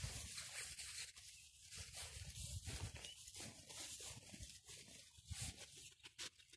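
Quiet rustling in mown grass as a small dog sniffs its way along a laid scent track on a leash, with the handler's steps following behind. A few light clicks near the end.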